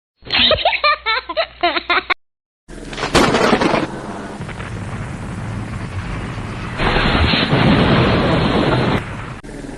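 Sound effects cut together. First comes a brief, high, warbling voice-like effect, then a moment of dead silence. After that comes explosion-like rumbling noise with a burst just after the gap, swelling louder near the end.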